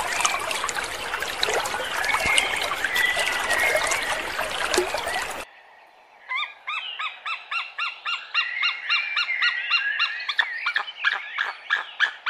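Animal calls in two parts: a dense tangle of chirps over a noisy background, then, after a sudden break about five seconds in, a run of short, repeated high-pitched calls, about three a second, quickening near the end.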